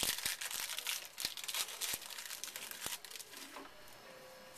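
Crinkling and rustling of a foil trading-card pack and its cards being handled, with a few sharp clicks, for about three seconds before it dies down.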